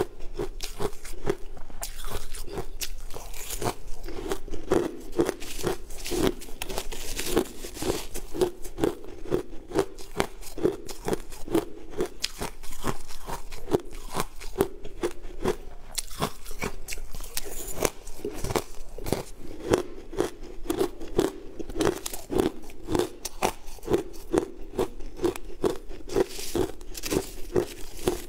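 Crushed ice being chewed close to the microphone: steady crunching at a rhythm of about two bites a second.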